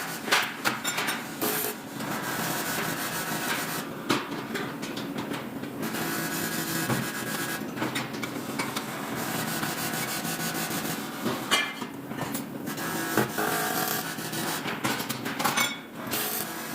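Metalworking on aluminum stock: continuous scraping and rubbing with frequent small knocks and clicks, pausing briefly a few times.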